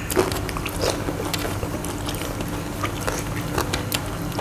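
Close-up eating sounds: biting into and chewing spicy fried chicken, with many short, sharp mouth and food clicks.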